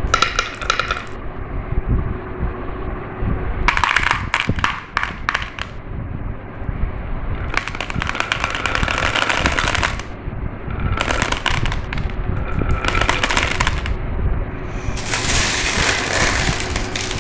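Marbles running down a marble run track, clicking and clattering in bursts of rapid clicks every few seconds over a steady low rolling rumble.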